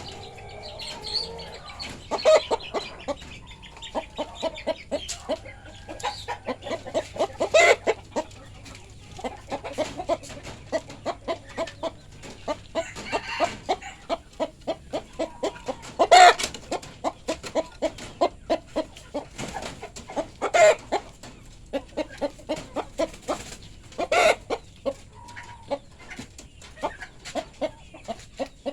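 Kampung chickens clucking in short repeated clucks, several a second, with a few louder sharp knocks among them.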